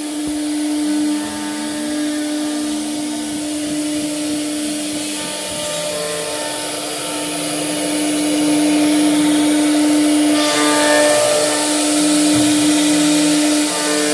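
CNC router running and cutting wood: a steady spindle whine with lower motor tones that step up and down in pitch as the head moves, growing louder and noisier about halfway through.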